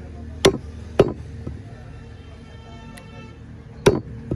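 Heavy cleaver chopping mutton on a wooden block: two hard strikes in the first second and two more near the end. Faint music plays in between.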